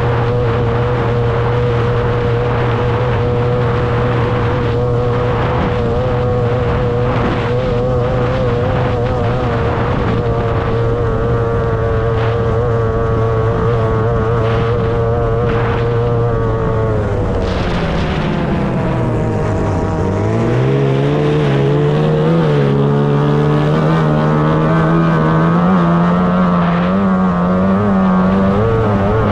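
30 hp two-cylinder racing outboard on a tunnel-hull race boat, heard from on board, running flat out at a steady pitch. A little over halfway through, the revs drop sharply and then climb slowly again as the throttle is reopened.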